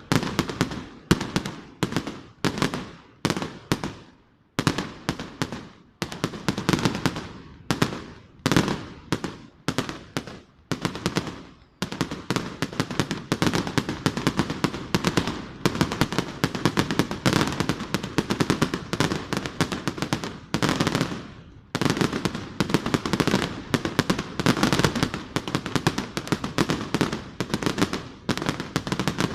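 Fireworks display: separate shell bursts, each sharp bang trailing off, about one or two a second. From about twelve seconds in they give way to a dense, rapid barrage of bangs and crackle, which breaks off briefly about two thirds of the way through and then resumes.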